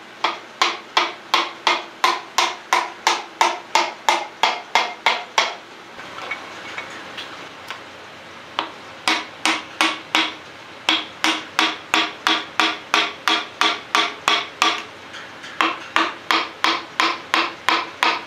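Butt of a hammer handle tapping a piston down through a steel ring compressor into a Ford 8N engine cylinder, in runs of about three taps a second with short pauses between runs. Each tap sets the compressor band ringing.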